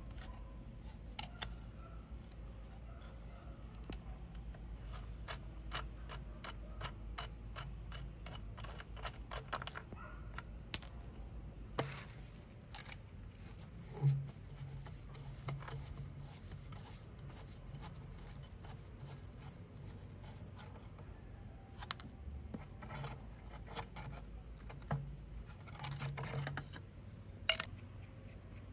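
Small metal clicks, taps and scrapes from hand tools and rusty fittings being worked loose on an old metal telescope tube. A run of quick, even clicks comes a few seconds in, with a few sharper knocks after it.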